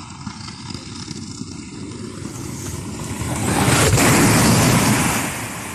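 Rumbling of an inner tube sliding fast down a matting-covered slide, then, about three and a half seconds in, a louder rush of plastic balls churning as the tube plows into a ball pit, lasting about two seconds.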